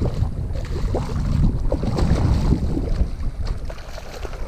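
Wind buffeting the microphone in a steady low rumble, with scattered small clicks and knocks throughout.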